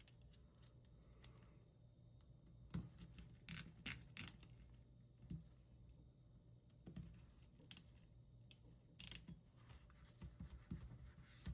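Irregular sharp clicks and small scrapes of a torque screwdriver working the screws on a RAM cooling block and handling the small metal parts, some clicks closely paired.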